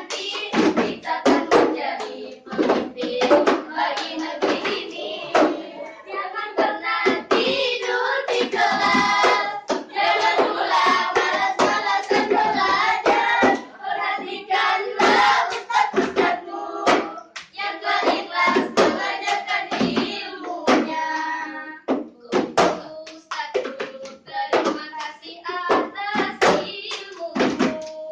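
A group of girls singing together in chorus, with hand claps and slaps repeated throughout.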